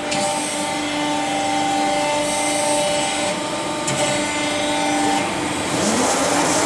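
Hydraulic CNC press brake running: a steady machine hum with a few held tones over a hiss, and a single click about four seconds in. The tones drop out about five seconds in.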